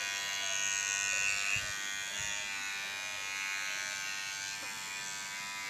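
Philips Series 1000 cordless beard trimmer running: a steady electric buzz of even pitch, with not much noise to it. A couple of soft handling bumps come about two seconds in.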